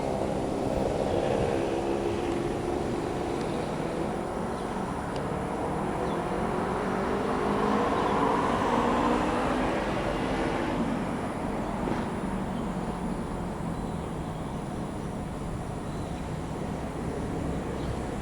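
KTM Class 26 diesel-electric locomotive running by, its engine note falling steadily over about ten seconds, then settling into a steady low rumble.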